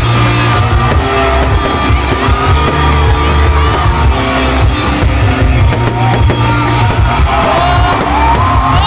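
Loud rock-style music with held bass notes, playing steadily through the fireworks show.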